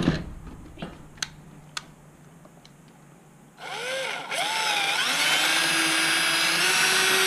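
Cordless drill reaming out a hole for a torsion bar. The drill starts about halfway through, its pitch swinging up and down briefly as the trigger is worked, then runs at a steady high whine until it stops at the end. Before that, a few light clicks.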